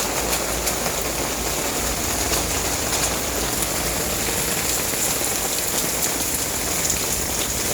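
Steady rain falling and splashing on waterlogged ground, with many small ticks of nearby drops.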